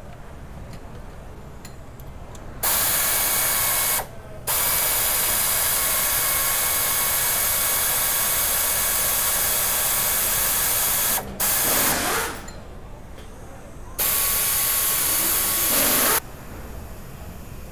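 Compressed air hissing from a shop air line and air tool, in four steady runs that start and stop abruptly, the longest lasting about seven seconds.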